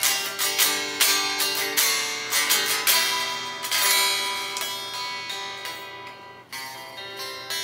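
Fesley FST 400M Strat-style electric guitar played unplugged, its strings heard straight off the solid body: a run of picked notes and chords that ring and fade, with a bright chime, freshly set up and in tune. A new strum comes in about six and a half seconds in.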